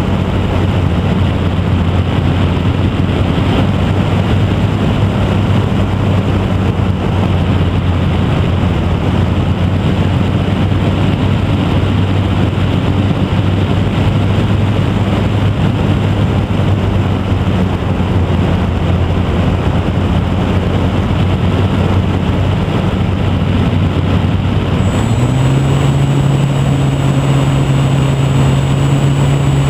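Electric motor and propeller of a HobbyZone Super Cub RC plane (E-flite Park 480 motor) running steadily in flight, heard from on board with wind rushing over the microphone. About 25 seconds in the pitch steps up as the motor speeds up, and a thin high whine joins in.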